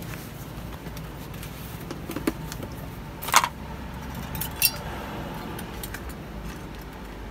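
Metal parts clinking and knocking against a plastic tub as they are set into it: a few light clicks, then a sharp clack about three and a half seconds in and another about a second later.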